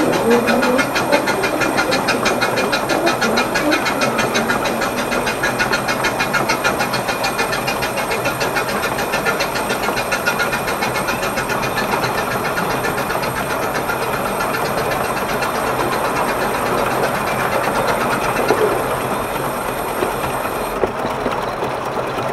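Narrow-gauge steam locomotive running at speed, with a fast, even beat from its exhaust and running gear over the rail noise.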